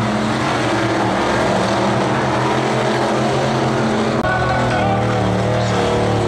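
Engines of racing combine harvesters running steadily, with the engine note changing abruptly about four seconds in.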